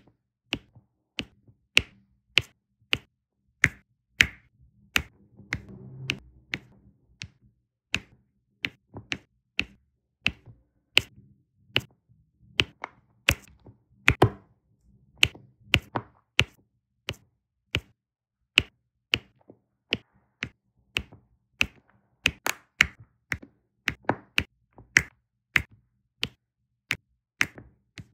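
Diamond-painting drill pen tapping, picking up plastic resin drills and pressing them one by one onto the adhesive canvas: sharp, crisp clicks at about two a second, unevenly spaced.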